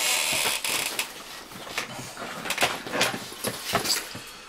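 Boxes and packaging being handled on a desk: a brief scraping slide for under a second, then scattered light clicks and knocks.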